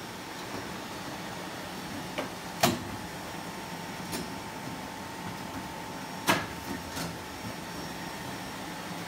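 Matrix Omni-Flow sheet-fed laminator running with a steady hum, broken by a few sharp clicks, the loudest two about two and a half and six seconds in.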